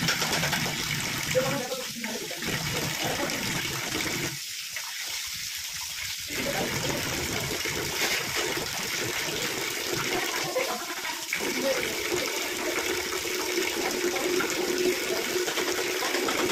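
Water running steadily, an even rushing hiss that carries on without a break.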